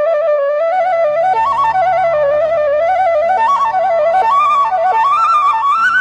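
Bansuri (Indian bamboo flute) playing a melody of quick ornamented turns that climbs higher near the end. A low, steady accompaniment comes back in underneath about a second and a half in.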